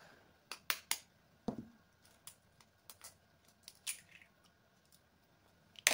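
A hen's egg being tapped and cracked open over a stainless steel mixing bowl: a scatter of sharp clicks and taps, with a duller knock about a second and a half in.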